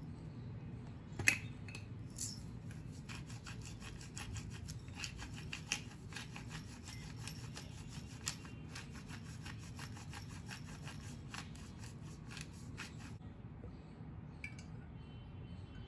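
Hand pepper mill grinding mixed peppercorns: a rapid, gritty ratcheting crunch that starts about two seconds in and stops a few seconds before the end. A single sharp knock comes just before the grinding starts.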